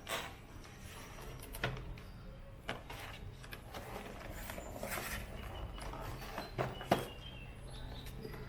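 Scattered clicks and knocks of objects being handled and set down, over a low background hum, with the sharpest knock about seven seconds in.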